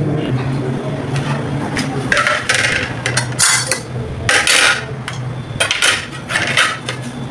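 Dishes and cutlery clattering in several short bursts as plates, spoons and knives are handled and set down.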